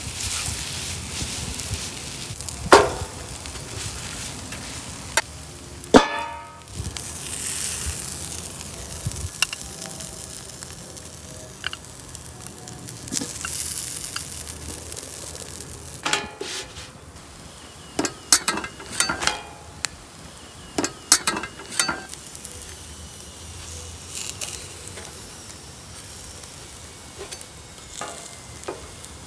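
Sizzling on an oiled flat-top griddle, with sharp metal spatula clicks and scrapes against the griddle, most of them in a cluster past the middle.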